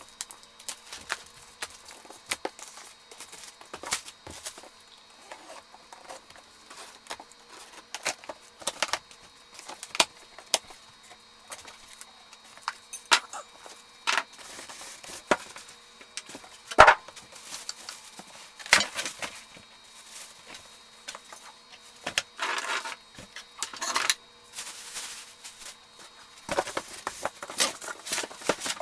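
Irregular clicks, knocks and short rustling noises, some sharp and loud, over a faint steady hum.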